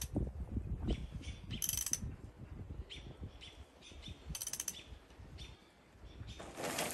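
Ratchet wrench clicking in short bursts, about three times, as it turns the bolt of a threaded-rod puller. The puller is drawing a seized cast-iron valve guide out of a 1926 Fordson F engine block, and the guide has not yet broken free.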